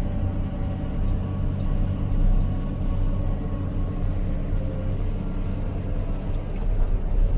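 Diesel engine of a Sany SR155 rotary drilling rig running steadily, with a continuous low drone that grows a little louder near the end.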